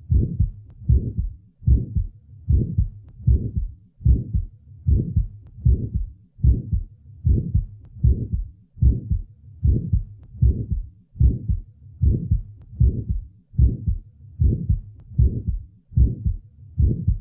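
Heart sounds with the early systolic murmur of a small muscular ventricular septal defect, heard at the left lateral sternal border: the murmur begins with the first heart sound and stops in mid-systole. The beats repeat evenly, about 75 a minute.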